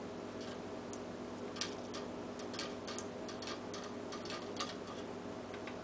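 A dozen or so light, irregular clicks and ticks as the rewired ceiling fan motor and its hall-sensor board are handled and positioned, over a steady low hum.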